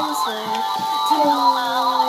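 Music: a melody of held and sliding notes over a steady beat.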